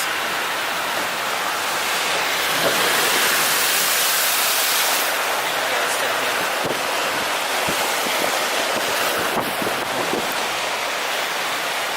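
Floodwater rushing down a street, a steady loud rush that swells a little a few seconds in, with wind on the microphone.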